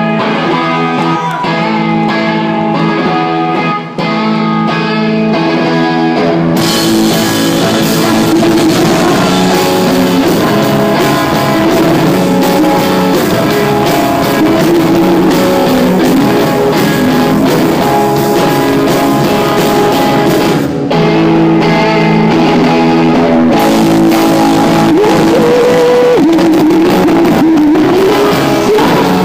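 Live rock band playing loud. Guitar and bass chords ring alone at first. About six and a half seconds in, the drums and cymbals come in and the full band plays on, with a woman singing.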